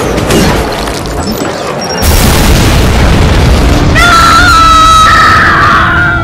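A sudden loud boom about two seconds in that rumbles on, as a film sound effect, over dramatic music. From about four seconds, high held tones with rising glides come in over the rumble.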